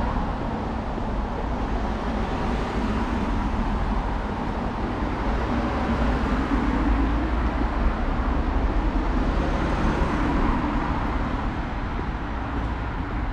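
Steady outdoor city-street ambience: a continuous low rumble and hiss with no distinct events standing out.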